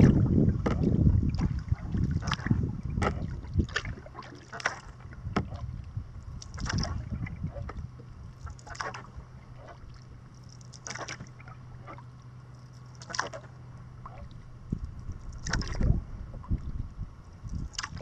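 Kayak paddle strokes: the blades dip into the water with short splashes and drips, quickly at first, then about every two seconds. A low wind rumble on the microphone is heaviest in the first few seconds.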